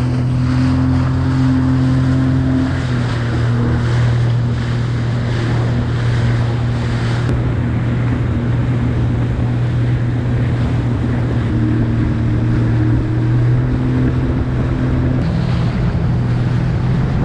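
Sea-Doo Fish Pro jet ski running at a steady cruising speed, its engine holding an even pitch over the rush of water spray off the hull and wind on the microphone.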